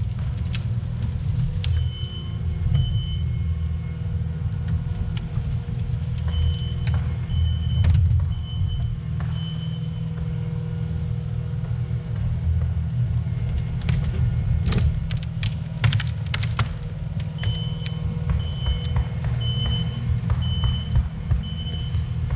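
Diesel engine of compact earthmoving equipment running steadily, with a reverse alarm beeping in spells of short evenly spaced beeps. A cluster of sharp knocks and clatter comes about two-thirds of the way through.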